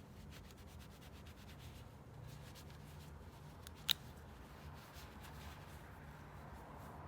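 Faint rubbing with small scattered clicks from hand work on a Zippo lighter, and one sharp click about four seconds in, over a steady low hum.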